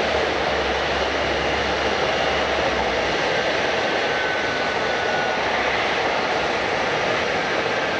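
Airliner engines running, a steady continuous rush of noise with a low rumble beneath that fades out about three seconds in.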